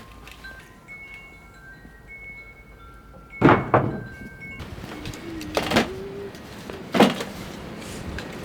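Wind chimes ringing, several tones at different pitches held and overlapping. Partway through come a few loud knocks, two close together and then one more near the end.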